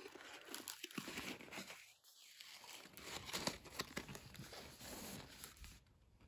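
Faint crinkling and crackling of a paper pie sleeve as it is handled and the fried pie is pushed up out of it, in scattered short bursts with a brief lull near the end.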